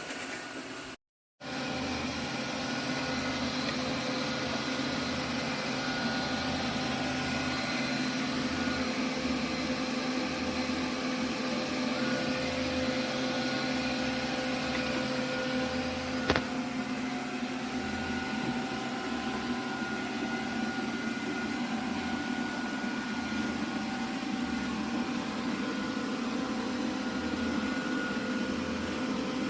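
iRobot Roomba robot vacuum running with a steady motor hum, with a low pulsing underneath that switches on and off. One sharp tick about halfway through.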